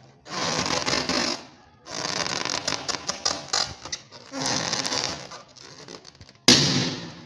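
Air let out of a balloon's neck in three long, fluttering, fart-like spurts, then a sudden loud balloon pop near the end.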